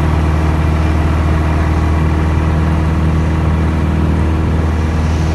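A two-seat light aircraft's piston engine and propeller running at a steady, loud drone during the takeoff roll, heard from inside the cockpit.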